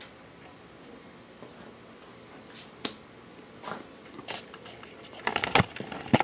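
A few scattered sharp clicks and light knocks, then about a second of close, rapid knocks and rubbing near the end as the camera is handled and moved.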